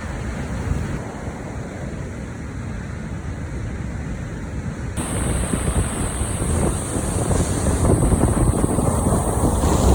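Strong wind buffeting the microphone over the rushing noise of a rough sea and breaking surf. About halfway through the sound changes abruptly and grows louder.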